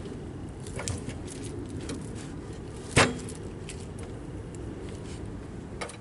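Wooden slabs being handled on a portable sawmill bed: scattered knocks and clatter, with one loud, sharp knock about three seconds in, over a steady low rumble.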